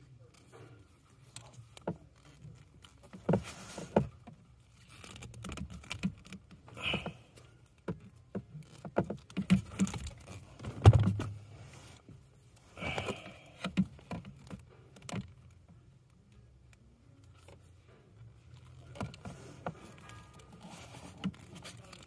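Hand wire strippers cutting and stripping insulation from wire leads: irregular sharp clicks and snaps, with the small rustle of the wires being handled.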